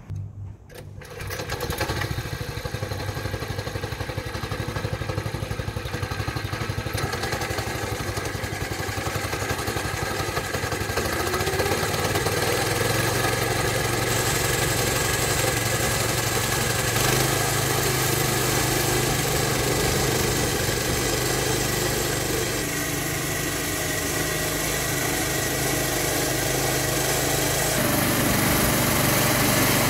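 Small petrol engine of a walk-behind cylinder lawn groomer running steadily as the machine is pushed over couch grass, its tine reel grooming the turf.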